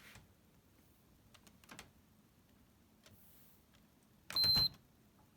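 A single short electronic beep, one steady high tone lasting under half a second about four seconds in, from the Sedona drying oven's control-board beeper: the repaired board has power and responds. A few faint clicks come before it.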